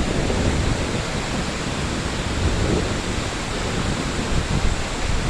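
Steady rush of water, as from a waterfall, with a low uneven rumble of wind on the microphone.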